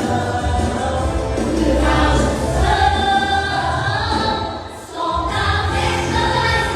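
Gospel choir singing over a steady bass beat, with a short drop in the music a little before five seconds in.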